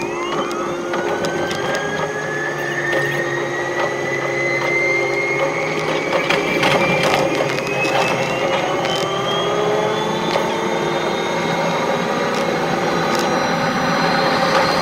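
Keihan electric train sped up six times: the motor whine rises steadily in pitch as the train accelerates, over a rapid mechanical clatter of wheels on rail joints with sharp clicks.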